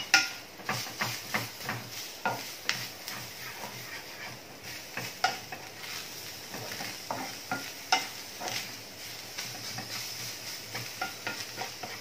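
Wooden spatula stirring grated fresh coconut and lumps of jaggery in ghee in a frying pan. Irregular knocks and scrapes of the spatula against the pan, a few a second, over a steady sizzle.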